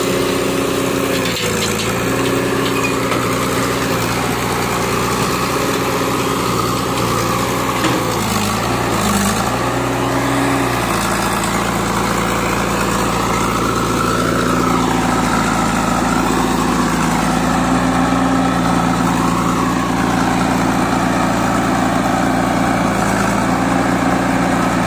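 Diesel engines of a Mahindra B 275 DI three-cylinder tractor and a JCB 3DX backhoe loader idling steadily. The engine note wavers briefly about eight seconds in, then settles into a slightly different steady note.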